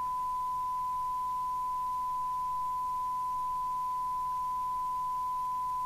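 Steady 1 kHz test tone from a CB radio receiving a signal generator's modulated test signal. This is the audio that a SINAD meter reads while the receiver is being aligned.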